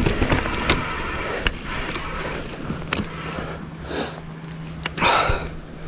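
Mountain bike climbing over rocky, loose ground: tyres crunching and rolling, with scattered clicks and knocks from the bike over the rocks.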